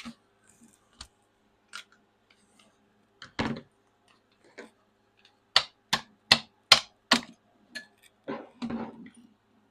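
Hand work with an Allen key on a skid steer's hydraulic control valve cap bolts. There is a clatter about three and a half seconds in, then a run of five sharp clicks a little under half a second apart, then a rattling clatter near the end.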